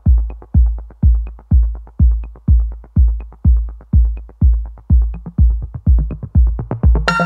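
Electronic background music stripped down to a bare kick drum beating about twice a second, with faint ticks between. Near the end the full track with synths comes back in.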